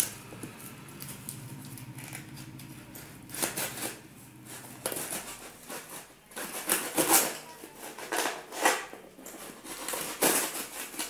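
A serrated knife cutting and scraping through packing tape and cardboard on a small parcel box, in short, irregular rasps every second or two.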